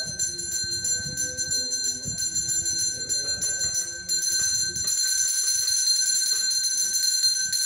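Temple bell rung rapidly and without pause, a steady high ringing, as the priest waves the offering plate before the idols during the arati. A low murmur of other sound runs beneath it and fades out about five seconds in.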